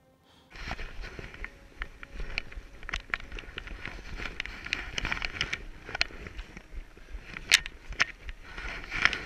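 Snow crunching and scraping under a climber's boots and ice axe, in irregular sharp crackles, with wind rumbling on the microphone.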